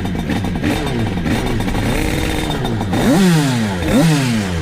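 172 cc twin-cylinder motorcycle engine being ridden hard, its pitch repeatedly climbing and dropping. It revs sharply twice, about three and four seconds in, each time falling straight back.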